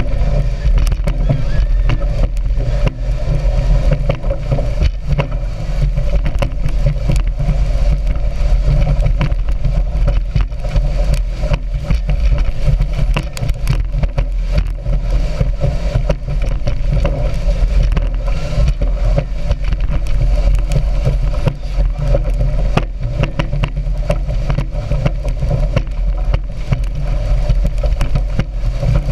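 Speedboat running steadily at speed, its engine under a rush of wind and water, with many sharp knocks throughout.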